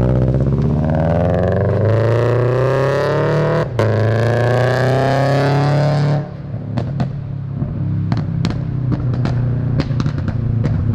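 Scion FR-S 2.0 L flat-four with a catless front pipe accelerating hard: the engine note climbs, breaks briefly for a shift about four seconds in, then climbs again. About six seconds in the driver lifts off and the exhaust lets out a string of sharp pops and crackles on overrun from the pop tune. It is very loud.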